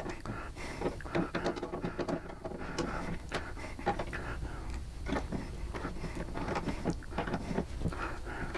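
Small metal hardware being handled by hand: irregular light clicks, taps and scrapes as screws, hooks and backing plates are fitted and the screws started into a motorcycle saddlebag's lid hardware.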